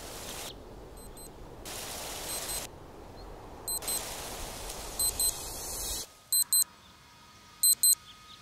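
Electronic alarm sounding in short double beeps about every 1.3 seconds. They are faint at first over a steady rushing noise, then become clear and louder in a quiet room after a sudden cut about six seconds in.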